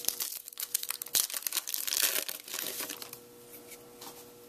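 Foil wrapper of a trading-card pack crinkling and tearing as it is opened by hand, with dense crackling for about three seconds before it quietens.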